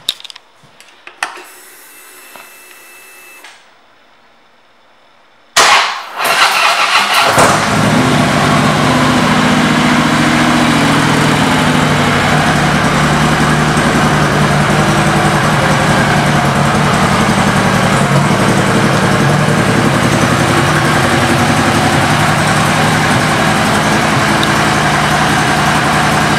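2013 Harley-Davidson Street Glide V-twin with an aftermarket exhaust. After a few light clicks and a faint whine, it is started about five and a half seconds in, catches with a loud burst and settles into a steady idle.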